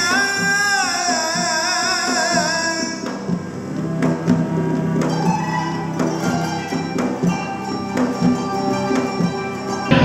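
Traditional Turkish music ensemble playing. A high, wavering melodic line with vibrato holds for the first three seconds, then gives way to plucked string notes over a low held tone.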